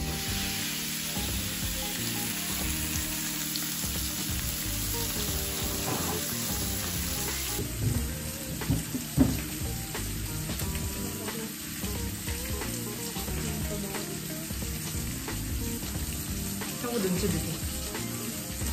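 Beef brisket searing in a hot pan, a steady, dense sizzle. About seven and a half seconds in it cuts off abruptly, leaving background music with a couple of sharp clinks.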